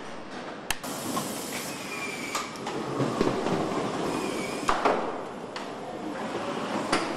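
Car assembly-line factory noise: a steady mechanical din with sharp clicks and knocks every second or two as parts are handled and fitted.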